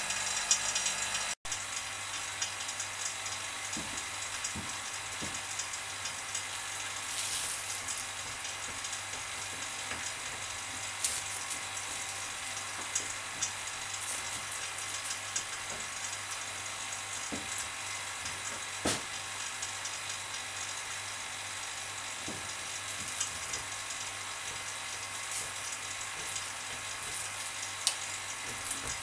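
Steady hiss with a low hum, broken by scattered short clicks and crinkles of plastic vacuum-bagging film as it is pressed down around the parts with a hand tool.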